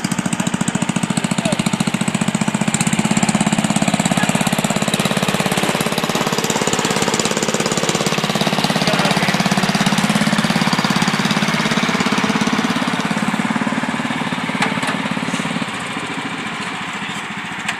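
Riding lawn tractor engines running hard under load in a tractor pull, a steady, rapid firing beat; the sound drops somewhat near the end.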